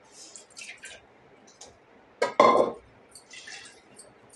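Soaked dal and water poured from a steel bowl into a stainless-steel pressure-cooker pot, with faint splashing and scraping. A little past halfway the steel bowl clanks sharply against the pot, the loudest sound, and then the bowl is scraped out over the pot.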